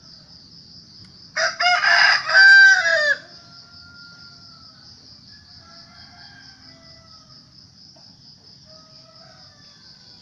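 Rooster crowing once: a loud crow about two seconds long, starting about a second and a half in, followed by faint, quieter calls.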